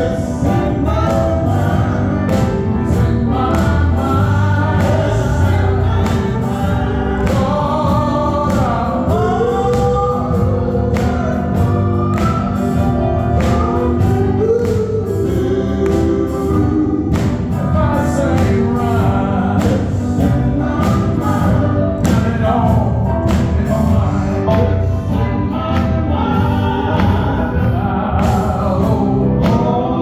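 Male gospel quartet singing live, several voices in harmony over an electric guitar and a steady beat, heard through a church PA.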